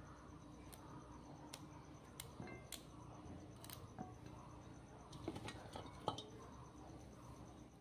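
Faint snips of a blade cutting through fresh dhekia (fiddlehead fern) stems by hand, a few scattered cuts with a quicker cluster about five to six seconds in.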